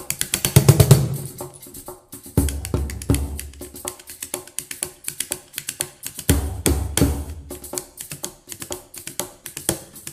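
Hand-drum trio of doholla (large bass goblet drum), cajon and tamburello (Italian frame drum) playing a fast rhythm together: quick sharp strokes throughout, with bunches of deep bass strokes coming in several times.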